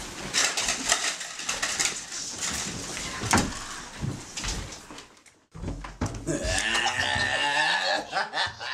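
Scattered knocks and clatter, then from about six seconds in a person laughing.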